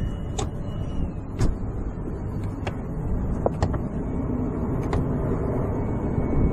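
Steady hum and air noise of running HVAC plant, the dehumidifier unit's blowers, with a faint high whine and about half a dozen light clicks and taps scattered through.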